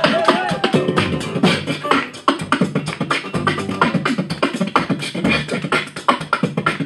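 Human beatboxing into a handheld microphone: a fast run of percussive mouth sounds, with a few sung or gliding vocal effects in the first second.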